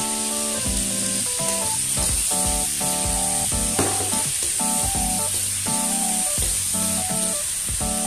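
Chopped garlic sizzling in melted margarine in a wok as a metal spoon stirs it, with one sharp knock of the spoon against the pan about halfway through. Background music plays throughout.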